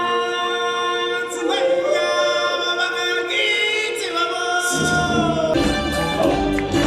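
A group of singers holding long notes in harmony, unaccompanied at first; a deep bass accompaniment comes in about five seconds in.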